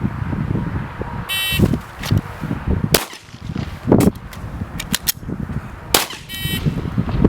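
A shot timer's start beep, then several 9mm shots from a Glock 17 Gen 2 pistol fired at an uneven pace, then a second timer beep five seconds after the first, marking the end of the five-second par time. Wind rumbles on the microphone throughout.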